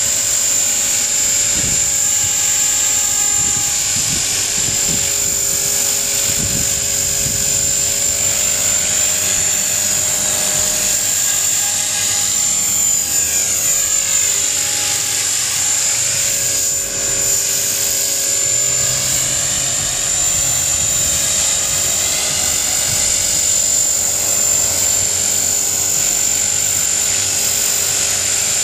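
Electric T-Rex 450-clone RC helicopter in flight: a steady high-pitched motor whine over the buzz of the spinning rotors. Midway, the sound sweeps and swirls as the helicopter moves past.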